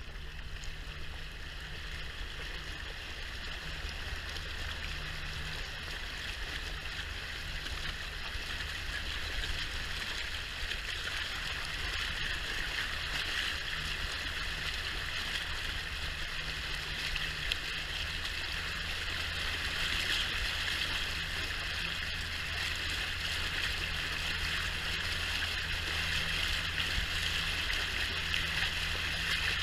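A rigid inflatable boat under way: water rushing and spraying along the side of its tube, getting louder as the boat gathers speed, over the low steady hum of its engine.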